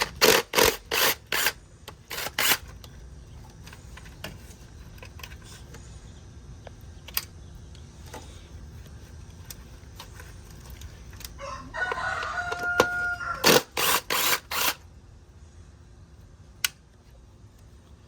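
Metal tool clicks and clanks in short clusters as a 10 mm bracket bolt is worked loose, with a rooster crowing once about twelve seconds in.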